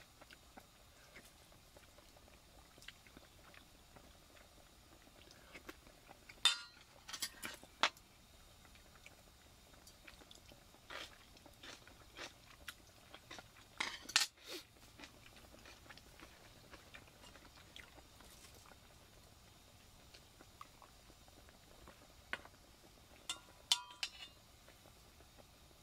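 Metal chopsticks and a spoon clinking against stainless steel bowls in three short clusters, the last one briefly ringing, with faint chewing in between.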